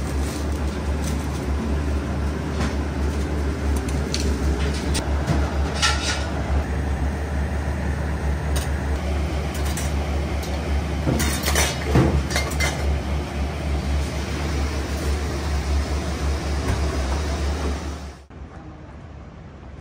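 Metal utensils clinking against stainless steel bowls and a sieve as egg is strained and whisked, a few sharp clinks about six seconds in and a cluster around eleven to thirteen seconds, over a steady low hum of kitchen machinery. The hum cuts off suddenly near the end.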